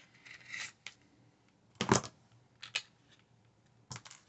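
Knife packaging being cut open and handled: a few scattered clicks and rustles, the loudest a sharp snap about two seconds in.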